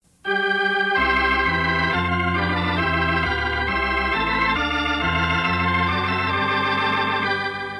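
Organ playing a slow theme in sustained, held chords over a steady bass, starting abruptly and dying away near the end: the opening theme of a radio programme, just before the announcer comes in.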